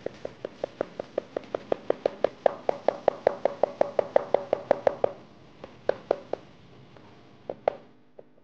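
Chinese cleaver slicing and chopping garlic cloves on a cutting board: a quick, even run of knocks, about five a second, for about five seconds, then a few scattered chops.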